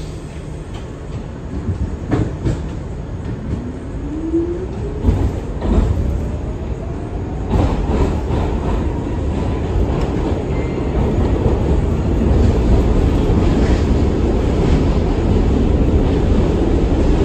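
R62 subway car picking up speed: the traction-motor whine rises steadily in pitch over several seconds while the running rumble grows louder. Wheels knock over rail joints several times in the first half.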